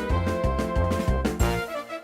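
Background music: an upbeat, bouncy tune over a bass line of about four notes a second, which drops out about one and a half seconds in, leaving a few higher notes.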